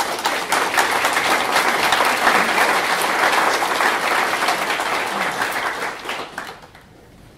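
Audience applauding, loud and sustained, then dying away near the end.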